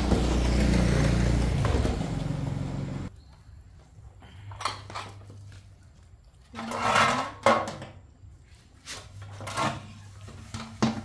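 A low mechanical rumble that cuts off abruptly about three seconds in, then scattered knocks and clatters of kitchen work over a faint low hum.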